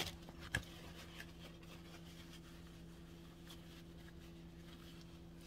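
A steady low hum under quiet room sound, with two small sharp knocks in the first second.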